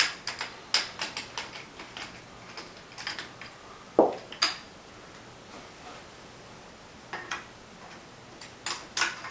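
Small drum key turning a clamp bolt on a metal drum rack: scattered metallic clicks and clinks in short clusters, with one louder, duller knock about four seconds in.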